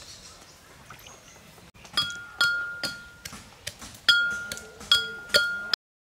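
Metal cookware struck about eight times at uneven intervals, each hit ringing with the same clear metallic tones; the sound stops abruptly near the end.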